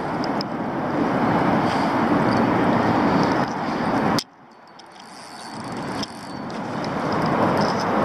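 Road traffic noise from the bridge overhead, a steady rushing hum. It drops away sharply about four seconds in, then swells back up gradually, like another vehicle approaching.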